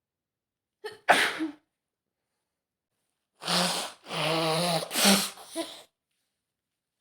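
A woman with a cold sneezing. There is one short sneeze about a second in, then a longer, voiced sneeze from about three and a half seconds in that peaks near five seconds and trails off.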